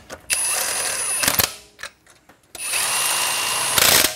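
A power impact wrench spins lug nuts onto the wheel studs in two runs with a high whine, each run a second or so long and ending louder as the nut tightens.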